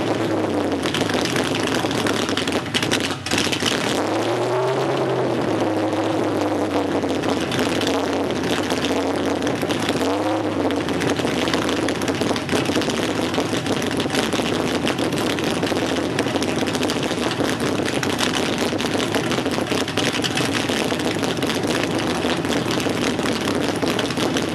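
Car engine with an aftermarket heads-and-cam setup and true dual exhaust, running without a tune: idling steadily, revved briefly twice, about four and ten seconds in, the pitch rising and falling back each time.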